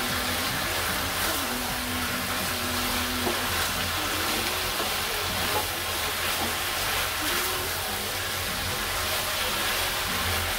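Mushrooms and green chillies sizzling steadily as they are stir-fried in a wok, with a spatula stirring and scraping through them against the pan.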